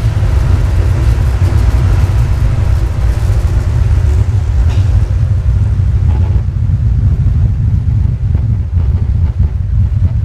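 Loud, bass-heavy audio from a fairground PA system with 15-inch Eminence speakers, its deep bass dominating. About halfway through, the treble drops away, leaving mostly bass.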